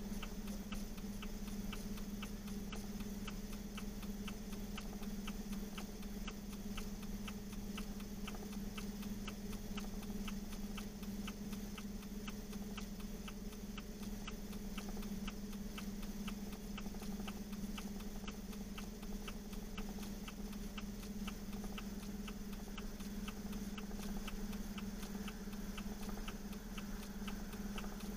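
Vehicle hazard-light flasher clicking steadily, about three ticks a second, over the constant low hum of an idling engine.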